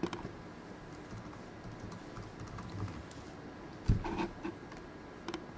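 Typing on a computer keyboard, a short line of text, with a sharp knock about four seconds in.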